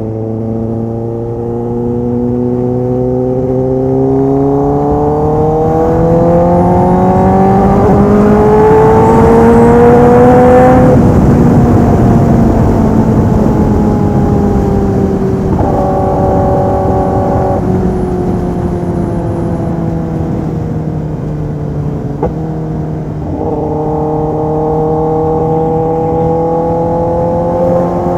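Kawasaki ZX-10R inline-four sportbike engine through a full aftermarket exhaust system, heard while riding. The revs climb for about eleven seconds, ease off and hold, then climb again near the end.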